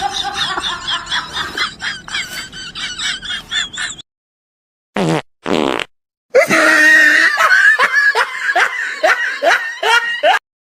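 Comedy sound effects of farting and laughter, in rapid short bursts. They come in two long stretches, broken by a short gap about four seconds in.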